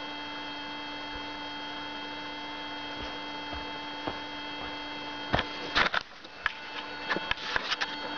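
Koschei 25K deep-search metal detector with a 60 × 60 cm frame giving a steady, unbroken signal tone: it is responding to a stainless-steel plate buried in the soil. The tone cuts off about six seconds in, and a few knocks and rustles of handling follow.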